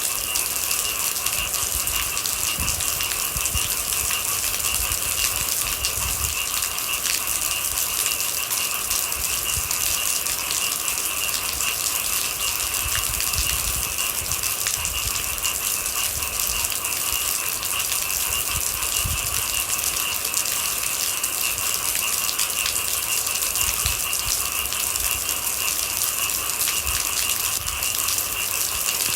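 Steady rain, a dense patter of countless small drops that does not let up, with a steady high-pitched tone running underneath it and occasional low rumbles.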